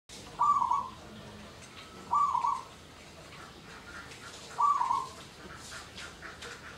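Local Indonesian zebra dove (perkutut) cooing: three short phrases of a few notes each, roughly two seconds apart.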